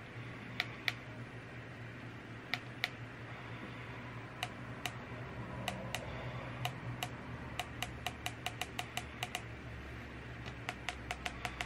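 Small plastic button clicks, scattered at first, then coming quickly and evenly, about three to four a second near the end, over a low steady hum.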